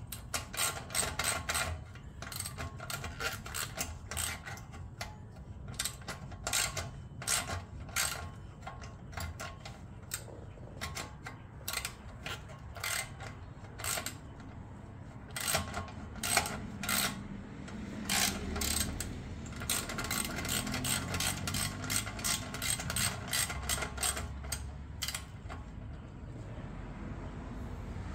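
Hand tools working a metal exhaust clamp on a motorcycle link pipe: short runs of sharp mechanical clicks, with pauses between runs.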